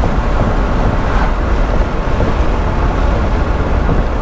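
Wind rushing over the open cockpit of a Chrysler Crossfire roadster driving with its top down, buffeting the microphone, with road and engine noise beneath; steady throughout.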